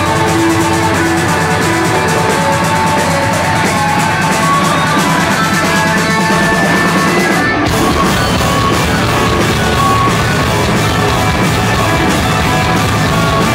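Live rock band playing loud: electric guitar over a drum kit. About seven and a half seconds in, the held notes give way to a denser full-band section.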